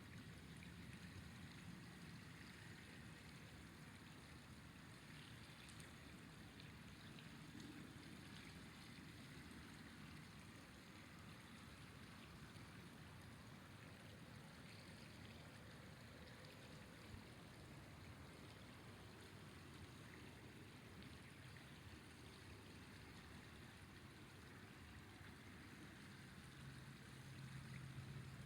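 River water flowing: a faint, steady rush with no breaks. A low hum comes in near the end.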